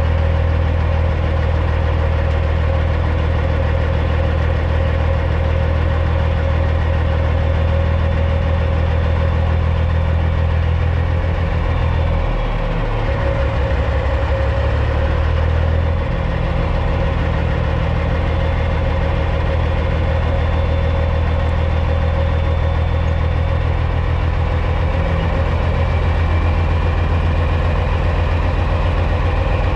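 Caterpillar C15 diesel engine of a Peterbilt 379 semi running steadily near idle, its low note dipping and changing for a few seconds about halfway through before settling back.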